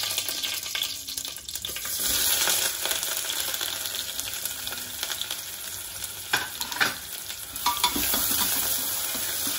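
Hot oil sizzling in a pressure cooker with bay leaves just added, stirred with a spoon. There are a couple of sharp knocks of the spoon against the pot about six and a half to seven seconds in.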